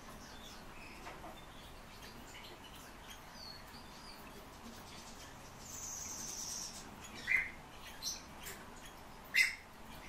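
Thin stream of tap water running steadily into a stainless-steel sink while a pet bird gives a few short, sharp chirps, the loudest about seven and a half and nine and a half seconds in.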